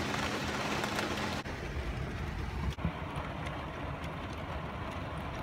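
Heavy rain beating on a van's roof and windshield, a steady dense hiss over a low rumble. About a second and a half in, the sound changes abruptly to a quieter, deeper rain noise.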